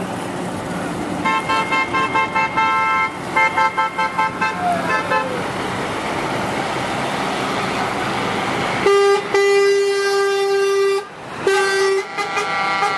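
A convoy of semi-truck tractor units passing on a highway, sounding their horns over steady traffic noise: rapid repeated toots in the first five seconds, a long air-horn blast about nine seconds in, and more horn blasts near the end.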